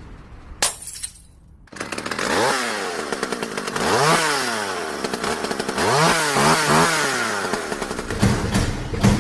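A small engine starts up about two seconds in and revs up and down several times, then settles into quick rhythmic pulses near the end.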